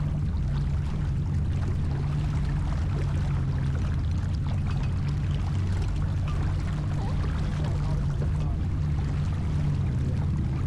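Water rushing and splashing along a J24 sailboat's hull, over a steady low motor hum.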